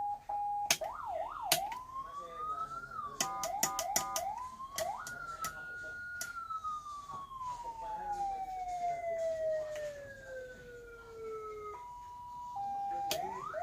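Whelen electronic fire-truck siren test-run through two horn speakers, cycling through its tones. A steady tone is followed by quick up-and-down yelps, a rising wail that holds and then falls slowly over several seconds, brief steady tones, and fast upward sweeps near the end. Sharp clicks come at the switches between patterns.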